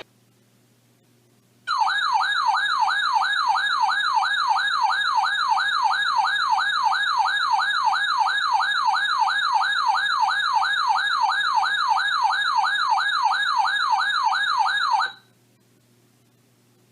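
Electronic emergency alert tone warbling rapidly up and down, about three sweeps a second. It starts about two seconds in and cuts off sharply after about thirteen seconds. It is the alarm that sounds ahead of a weather radio warning message.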